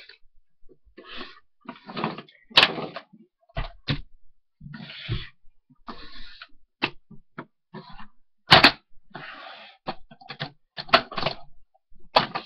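A Sephora eyeshadow kit being handled and opened on a desk: irregular clicks and clacks of the case with brief rustling, and two sharp knocks, about two and a half seconds in and again about eight and a half seconds in.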